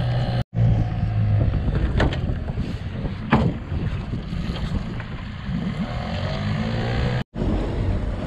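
Boat outboard motor running steadily under way, with water rushing along the hull. The audio drops out completely twice, briefly: about half a second in and near the end.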